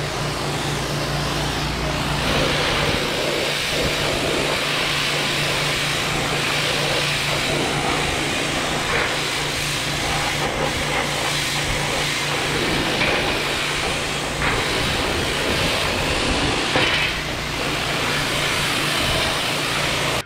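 Pressure washer running, its high-pressure spray hissing against a steel tractor side panel to wash off paint and rust loosened in an electrolysis tank. A steady motor hum runs underneath and drops away about fifteen seconds in, while the spray goes on.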